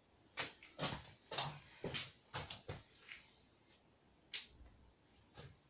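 Light clicks and taps of plastic Subbuteo player figures and ball being flicked and handled on the tabletop pitch, about ten separate irregular clicks with a sharper one near the end.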